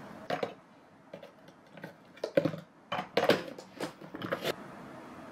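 Shaved ice and its plastic container being handled: a string of short crunchy scrapes and taps at irregular intervals, busiest in the middle.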